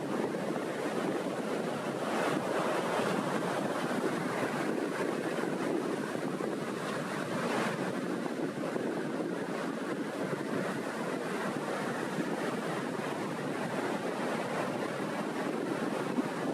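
Small sea waves breaking and rolling onto the shore in a steady wash of surf that swells a couple of times, with wind buffeting the microphone.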